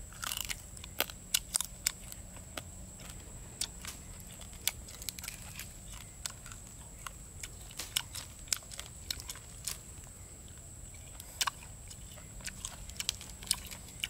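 Someone eating grilled chicken off the bone, chewing and biting, with irregular sharp crunches and crackles as the skin and meat are torn from the carcass.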